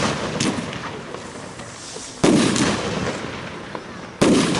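Compound firework cake firing: shots burst with a loud bang about every two seconds, each followed by a fading noisy tail.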